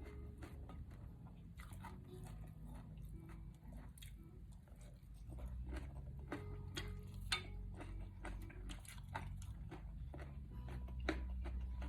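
A person chewing and crunching food, with irregular crisp bites, typical of raw vegetables such as celery and radish, over a low steady hum.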